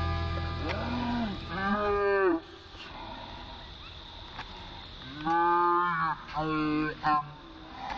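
Drawn-out mooing calls, about five, each under a second long and rising then falling in pitch, over the last of a fading music chord.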